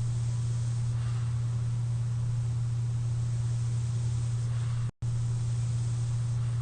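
Steady low hum and airy hiss of a CPAP machine worn by a sleeper, with two faint swells of breath through the mask. The sound drops out for an instant about five seconds in.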